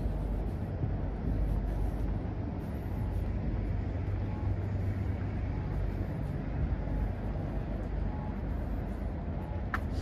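Steady low rumble of city road traffic, with a brief high chirp near the end.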